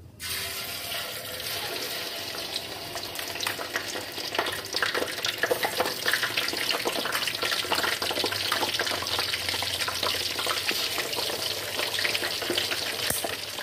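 Marinated duck pieces deep-frying in hot oil in a steel wok, sizzling and crackling steadily. The sizzle starts suddenly as the first piece goes into the oil.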